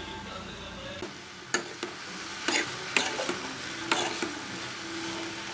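A steel spoon stirring chopped ridge gourd and onions frying in a non-stick kadai: a steady sizzle, with a few sharp clicks as the spoon knocks and scrapes against the pan.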